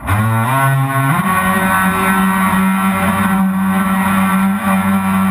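Model boat's motor throttling up, its whine rising in pitch over about a second, then running steadily at speed.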